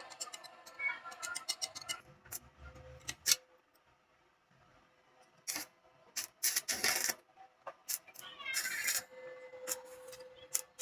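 Mini welding machine under test: a quick run of sharp clicks, then several short crackling bursts of sparking at the electrode, over a faint steady hum.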